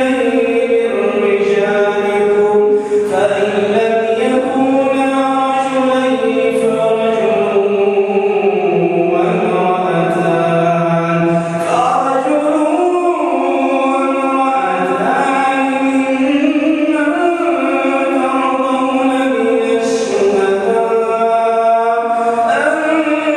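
A man's voice reciting the Quran in a slow, melodic chant, drawing out long held notes that glide up and down without pause.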